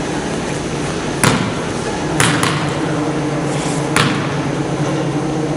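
A basketball bouncing on a hardwood gym floor: four sharp, uneven thuds over the steady background noise of a gym during a game.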